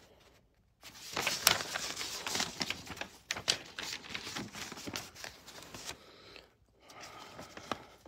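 Close handling noise: a dense run of rustles and small clicks near the microphone, starting just under a second in and dying down about six seconds in.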